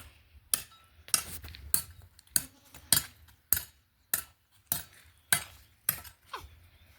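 A steady run of about ten sharp taps or clinks, evenly spaced a little over half a second apart, over a faint low hum.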